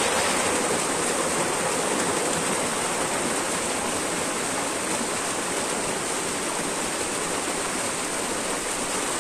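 Small mountain waterfall pouring down steep rock slabs: a steady rush of falling, splashing water.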